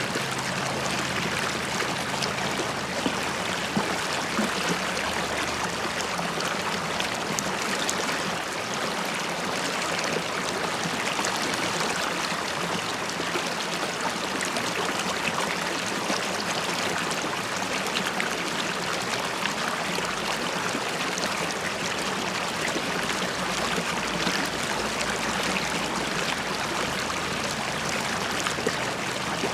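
River water flowing and bubbling over stones, a steady rushing with fine gurgling and trickling.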